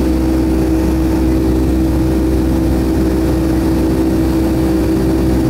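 Boeing 757-200's turbofan engines during the climb after takeoff, heard inside the cabin as a steady drone: a strong steady hum over a low rumble.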